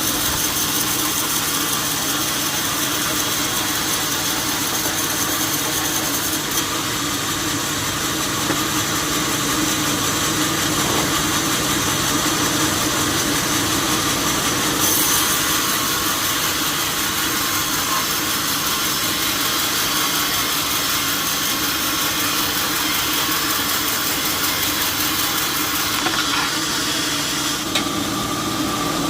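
Sawmill machinery running steadily, a constant mechanical hum with a few held tones and no breaks.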